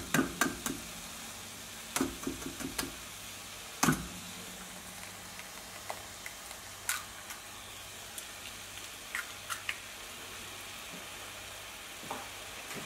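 Frying pan of liquid, prawns and vegetables simmering with a faint steady sizzle. Sharp knocks and taps come in the first four seconds, the loudest about four seconds in, as an egg is taken from its bowl and cracked into the pan, followed by a few light clicks.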